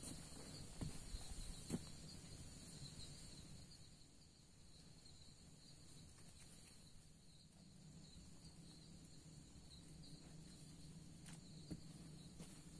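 Near silence on a forest trail: a few faint footsteps on dirt in the first two seconds and again near the end, over a steady, faint, high insect drone.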